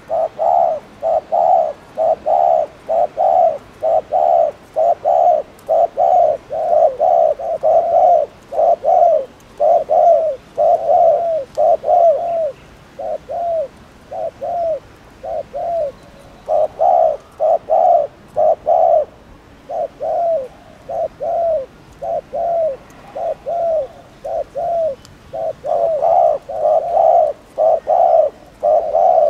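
Spotted dove giving its rapid 'gù' display coo: short, deep coo notes repeated about two a second in runs, sparser through the middle stretch. This excited cooing is the call used to provoke rival doves.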